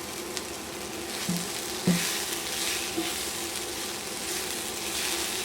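Onion, green pepper and chopped potatoes sizzling in olive oil in a hot skillet, with a few light knocks of a utensil against the pan. The sizzle grows louder about two seconds in.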